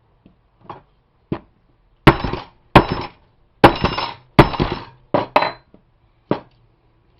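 Hammer blows on a plastic electrical wall outlet wrapped in a rag, breaking its housing apart. A few light taps, then four hard strikes under a second apart, then several lighter ones.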